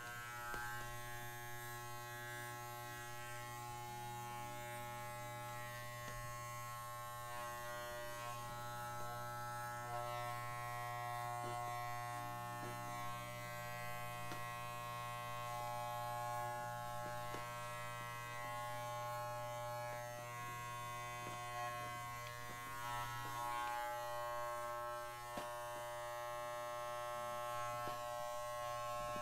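Corded electric dog grooming clippers running with a steady buzzing hum while trimming a miniature schnauzer's coat.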